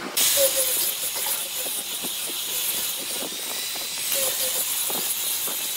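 Angle grinder fitted with a sanding pad, running and sanding the face of a glued-up wood block: a steady hiss of abrasive on wood with a thin high whine. It starts abruptly just after the start.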